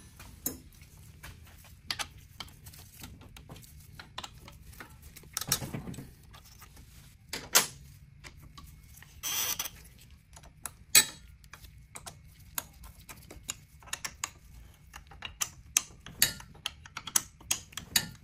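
Metallic clicks and clinks of a hand tool working the motor mounting bolts of a Talaria Sting electric dirt bike as they are tightened, with a few louder clacks and a denser run of ticking near the end.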